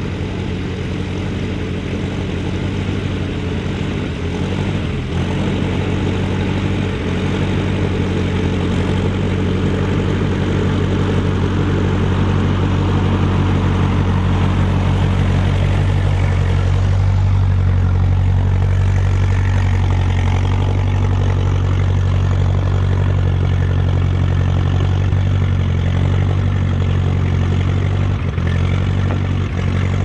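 Ferguson TE20 tractor's four-cylinder engine running steadily under load as it pulls a two-furrow plough through the soil, growing slightly louder around the middle.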